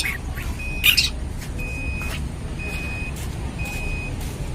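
Long-tailed shrike (cendet) giving a few short, sharp high calls, the loudest about a second in. Underneath are a high beep that repeats about once a second and a low rumble.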